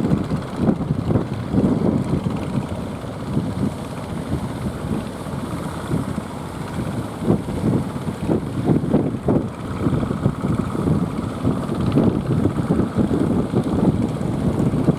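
Strong wind buffeting the microphone in irregular gusts, a low rumbling rush with no steady engine note.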